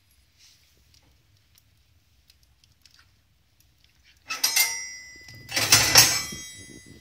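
Two bursts of clattering with a high metallic jingle ringing through them, one at about four seconds in and a louder one at about six seconds.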